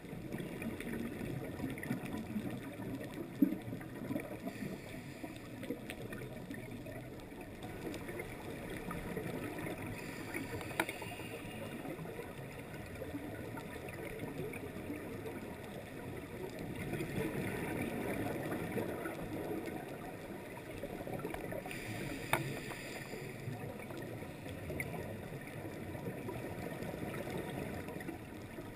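Muffled underwater noise of water and scuba bubbles, heard through an action camera's housing during a dive. It swells and eases over several seconds, with a few sharp clicks.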